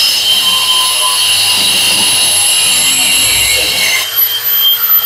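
Brushless electric wall chaser running at speed, its diamond blades cutting a groove into a wall: a loud, steady high whine over a rough grinding noise. About four seconds in the grinding thins out and the motor's whine carries on cleaner.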